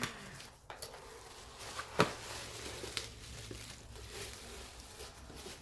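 Packaging crinkling and rustling as a parcel is unwrapped by hand, with scattered ticks and one sharp click about two seconds in.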